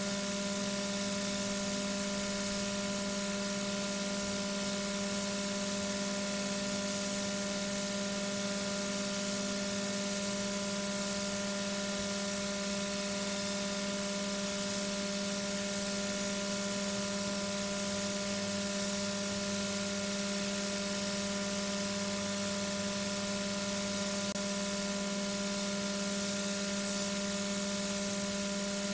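Steady electrical hum with a constant hiss from a nest-box webcam's audio feed.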